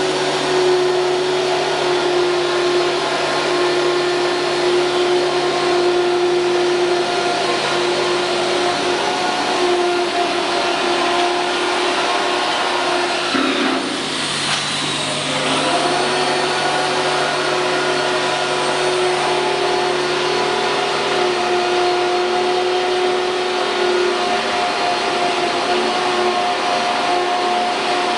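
CNC router machinery running with a steady electric whine over a hiss. The pitch sags briefly about halfway through, then returns.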